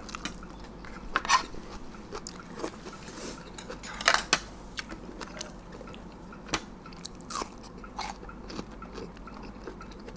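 Close-miked chewing and crunching of a spicy fried-egg salad with crisp raw vegetables, scattered sharper crunches standing out, the loudest about four seconds in.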